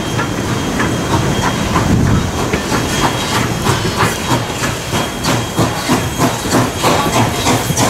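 Strasburg Rail Road steam locomotive working a passenger train, its exhaust chuffing from the stack in a steady beat of about two to three a second over a hiss of steam, growing louder in the first couple of seconds.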